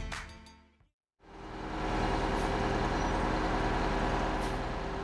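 Music fades out in the first second. After a brief silence, the steady running of a large vehicle's engine fades in and holds, with a constant low hum.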